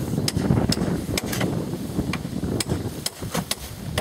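Hammer blows knocking a few times a second at an uneven pace, over a steady rustle of dry sticks and brush being handled close by.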